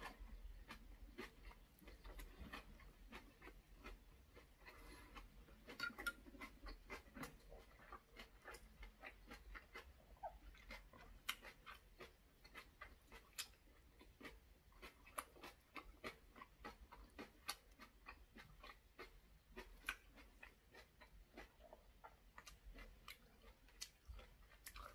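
Close-miked chewing of braised saury, aged kimchi and rice: faint, with many small clicks from the mouth, several a second.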